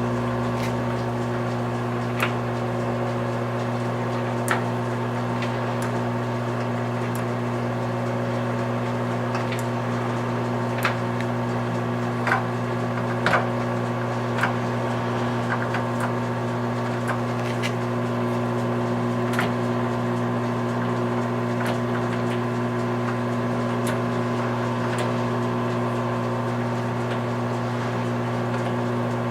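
Clausing Nardini MS 1432E engine lathe running at low spindle speed: a steady hum with scattered light clicks.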